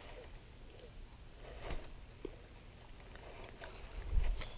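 Quiet outdoor ambience by a pond: a low wind rumble on the microphone under a faint steady high whine, with a few soft clicks and a louder low bump about four seconds in.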